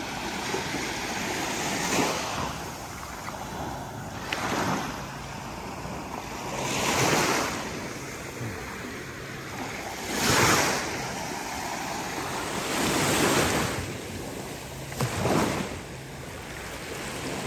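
Small ocean waves breaking and washing up onto a sandy beach, about six rushes of surf that swell and fade one every two to three seconds.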